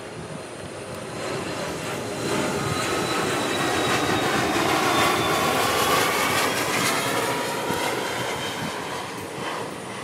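An airplane flying over: its engine noise swells over several seconds, peaks around the middle, and fades again, with tones that slowly fall in pitch as it passes.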